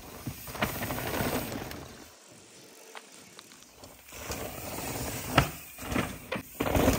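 Cross-country mountain bike ridden over a dirt singletrack: the freehub of its Industry Nine Hydra rear hub ratchets as the rider coasts, with tyre noise on the dirt. There are sharp knocks about five seconds in and a cluster of them near the end as the bike goes over bumps.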